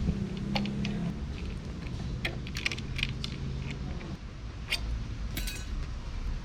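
Light metallic clinks and jingles, like hand tools and small hardware being handled during a motorcycle seat install. A cluster of clinks comes a couple of seconds in and a few more near the end, over a low steady hum that fades after about four seconds.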